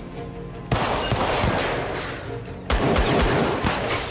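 Gunfire in two volleys of several rapid shots, the first under a second in and the second about two seconds later, each trailing off in echo.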